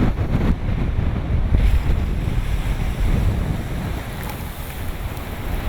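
Storm waves crashing on the sea front, with strong wind buffeting the microphone into a heavy low rumble.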